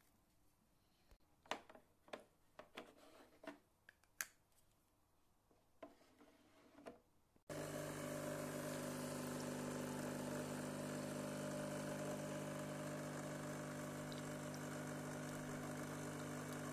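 A few light plastic clicks and taps from a refillable coffee capsule being handled. About seven and a half seconds in, a Nescafe Dolce Gusto coffee machine's pump starts suddenly and runs with a steady hum as it brews.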